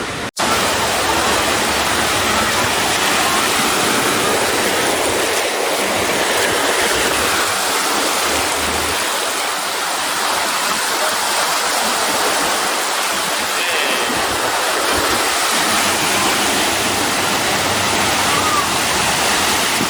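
Steady rush of churning, splashing water from a wave pool's waves, with faint voices in the background.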